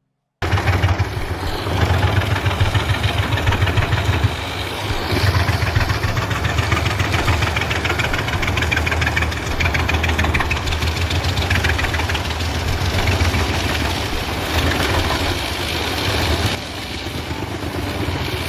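Wood chipper running under load: a steady heavy engine drone beneath loud, rough mechanical noise. It cuts in abruptly at the start and drops slightly in level near the end.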